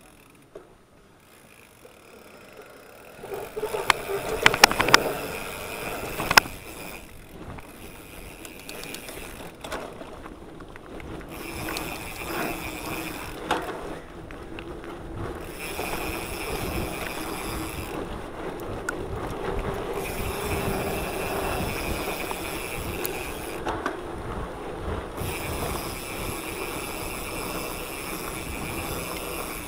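Mountain bike riding on a dirt trail: tyre noise and the bike's frame and chain clattering, starting about three seconds in, with sharp knocks over bumps in the following few seconds. After that a steady high buzz from the rear hub's freewheel ratchet comes and goes in stretches, on while the rider coasts and off while pedalling.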